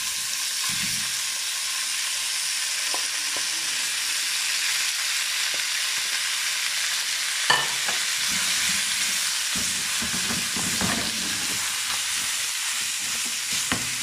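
Raw beef strips sizzling steadily in hot oil with chopped garlic and ginger in a steel frying pan. From about halfway through, a wooden spatula stirs and scrapes them around the pan, with one sharp knock just before the stirring starts.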